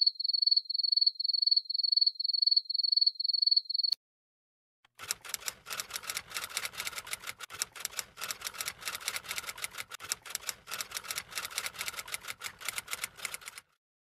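A high-pitched pulsing chirp, about three pulses a second, for about four seconds, used as a cockroach sound effect. After a second's pause comes rapid typing on a manual typewriter, a dense run of key clacks that stops shortly before the end.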